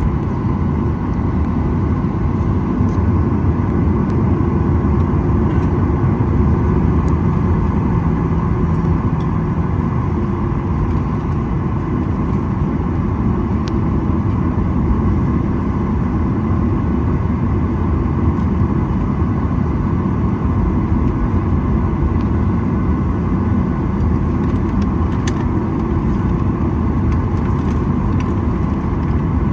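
Steady, even cabin rumble inside a Boeing 737-900ER, heard from a window seat: engine and airflow noise from its CFM56-7B turbofans.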